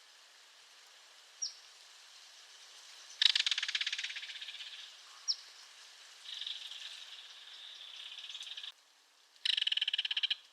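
Belted kingfisher giving its dry, machine-gun rattle call: a loud rattle about three seconds in that fades over a second or so, and another short one near the end. A quieter, steadier trill comes between them, and there are a couple of brief high chirps.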